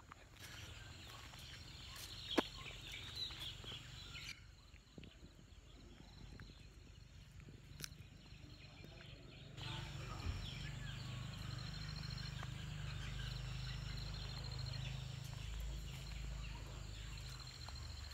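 Outdoor rural ambience: a low steady rumble on the microphone that grows louder about ten seconds in, with faint high chirping and a few sharp clicks.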